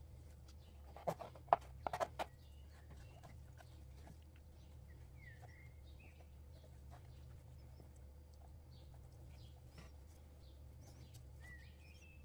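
Knife knocking against a plastic cutting board while a raw whole chicken is cut, a handful of sharp knocks about a second in. Faint bird chirps are scattered through the rest, over a low steady hum.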